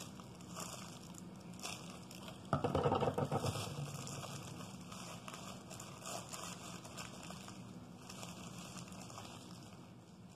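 Plastic piping bag of icing crinkling as it is squeezed by hand, with soft handling noise and a louder burst lasting about a second a little after two seconds in.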